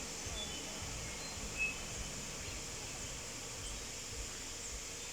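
Steady rush of a waterfall under a continuous high-pitched insect drone, with a few short bird chirps, the loudest about a second and a half in.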